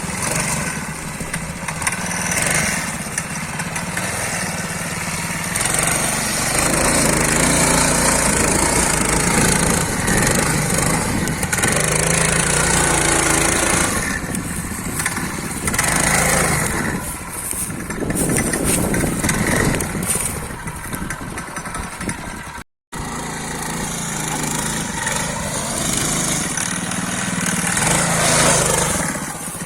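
Small engine of a homemade two-wheel-drive motorcycle running and revving up and down as it is ridden through heavy mud. All sound drops out for an instant about three-quarters of the way through.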